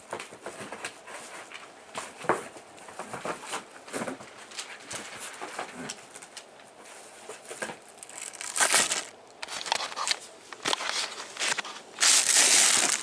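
Packaging being handled while a vacuum cleaner is unboxed: scattered taps, clicks and rustles of cardboard and plastic, with a louder burst of plastic wrap crinkling about a second before the end.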